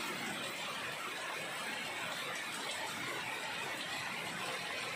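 Heavy rain falling steadily on shade netting and the leaves of potted plants: an even, unbroken hiss that neither builds nor fades.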